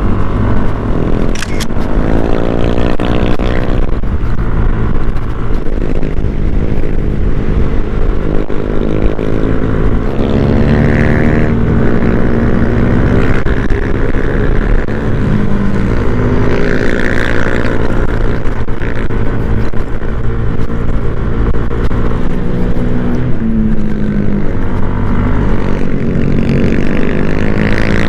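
Yamaha NMAX scooter's single-cylinder engine running while riding, its pitch rising several times as it accelerates and falling back as it eases off.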